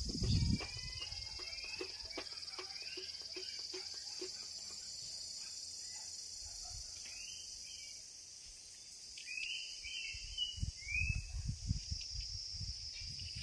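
Steady high-pitched drone of a chorus of insects, with short bird chirps scattered over it. A low thump comes right at the start, and low bumps and rumbles come in during the last few seconds.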